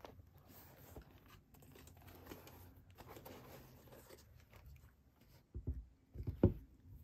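A pair of Nike Air Zoom G.T. Cut 2 sneakers being handled: soft rustling and scuffing of the uppers, soles and laces, then two dull thumps near the end as the shoes are set down on a tabletop, the second the louder.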